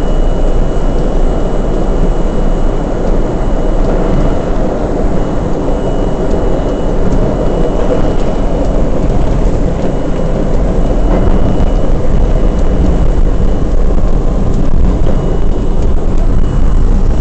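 R32 subway car running at speed between stations: a loud, steady rumble of wheels on rail and motors, with a faint high whine that comes and goes.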